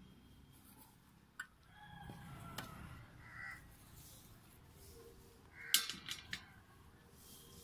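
Metal screw lid twisted off a glass jar with a click or two, then light knocks as the lid and a plastic strainer basket are set down on a plastic-covered table, the loudest knocks about six seconds in. Faint bird calls in the background.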